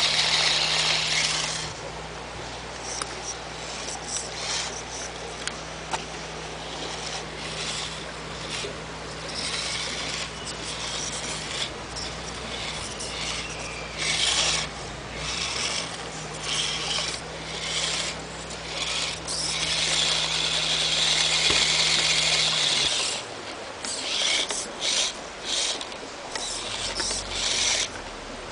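Losi Micro Crawler RC truck's small electric motor and gears whirring in on-and-off bursts as it crawls over rocks and gravel, the longest burst running for a few seconds about two thirds of the way through.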